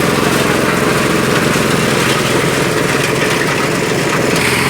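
Motorized grass chopper machine running steadily with a dense, even mechanical hum.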